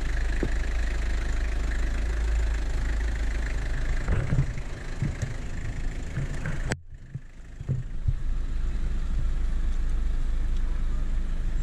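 Toyota Land Cruiser's diesel engine running at low revs, a steady rumble with a few knocks and thumps from the vehicle. The sound drops away abruptly for about a second, about seven seconds in, then the engine rumble comes back.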